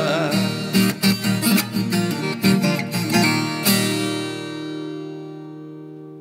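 Closing bars of a sertanejo song on acoustic guitars: quick plucked runs, then a final chord about three and a half seconds in that rings on and fades away.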